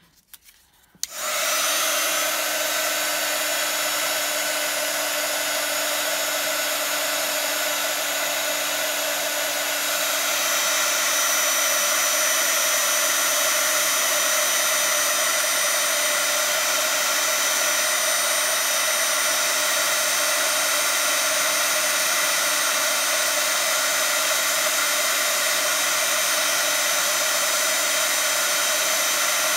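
Handheld craft heat gun switched on about a second in and running steadily, its fan blowing hot air to melt white embossing powder on vellum; slightly louder from about ten seconds in.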